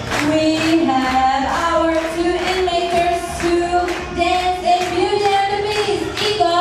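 A song with a melody sung over a steady beat of about two strokes a second.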